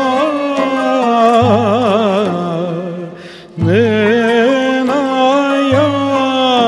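A male voice singing a slow Turkish classical song melody, long held melismatic notes with wavering ornaments, over an accompaniment that sounds a low bass note about every two seconds. The voice breaks off briefly near the middle, then comes back on a new held note.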